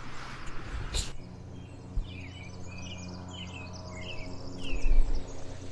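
Short, falling chirps of a small bird, about six in two seconds, over the steady low drone of a distant boat motor coming up the river. A few low thumps are heard, the loudest about five seconds in.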